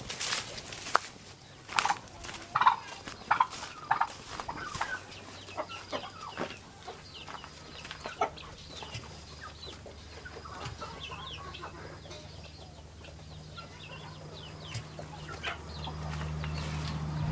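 Chickens clucking, with a run of short, loud clucks in the first few seconds and fainter calls after. A low steady drone comes in about halfway through and grows louder near the end.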